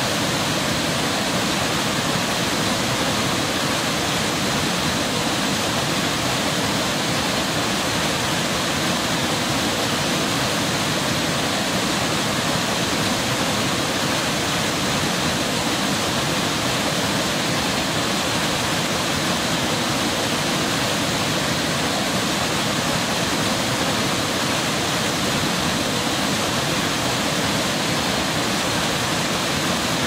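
Turbulent white water rushing and churning at a dam: a steady, unbroken rush of flowing water.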